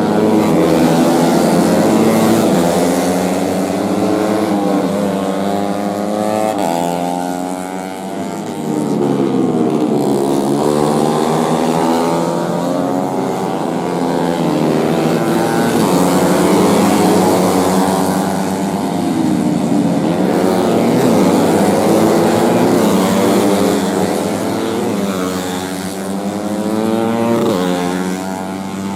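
Several four-stroke racing motorcycles with big-bore-kit engines running hard, their engine notes overlapping and repeatedly rising and falling in pitch as they rev, shift and pass.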